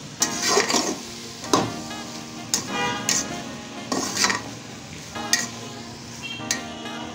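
A metal ladle scraping and knocking against a metal pot in irregular strokes, roughly one a second, as grated carrots are stirred while they fry in ghee; the pot rings briefly after some strokes.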